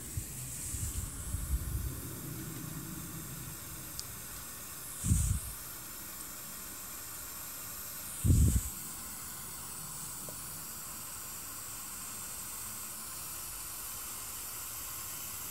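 Soldering the pins of mechanical keyboard switches to a circuit board: a steady hiss, low handling rumble in the first two seconds, and two short louder sizzles about five and eight seconds in.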